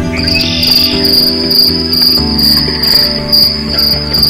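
An insect's steady, high-pitched trill sets in just after the start, with a quicker pulsing above it, over music playing underneath.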